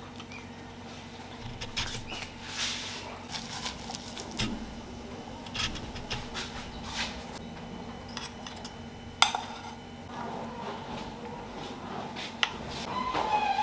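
Light clicks and taps of river mussel half-shells being handled and set down on a wooden cutting board, with one sharper click about nine seconds in, over a faint steady hum.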